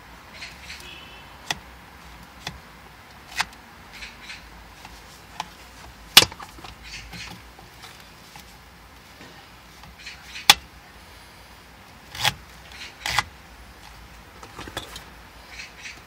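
Handling of a plastic universal tablet holder and an iPad: a string of sharp clicks and knocks with light rattling as its arms are adjusted and the tablet is fitted in and taken out. The loudest knocks come about six seconds in and about ten and a half seconds in.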